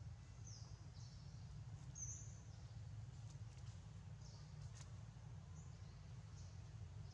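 Faint, short high-pitched animal chirps, about one a second, some falling in pitch, over a low steady hum.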